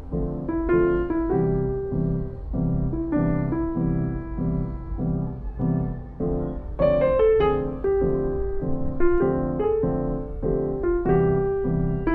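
Background music: a piano playing a gentle melody of evenly paced notes.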